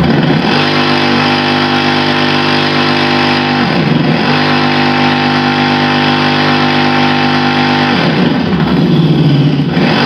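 Simulated petrol motorcycle engine played by an add-on sound-effect speaker on a Super Soco TC Max electric motorcycle. It comes on suddenly and loud, idles steadily, and the pitch changes briefly about four seconds in and again for a couple of seconds near the end as the throttle is worked.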